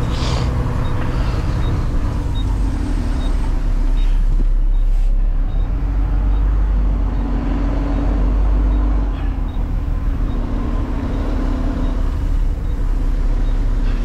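Garbage truck engine running as the truck drives, heard from inside the cab; it swells for a few seconds in the middle.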